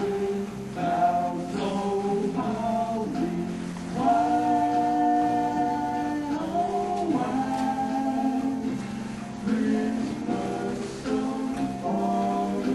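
A song sung by several voices, with a note held for about two seconds a third of the way in.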